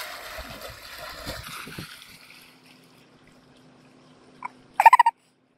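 Water splashing as a person wades fast into a cold lake and plunges in; the splashing dies away after about two seconds. Near the end comes a brief, loud, high-pitched cry, then the sound cuts off abruptly.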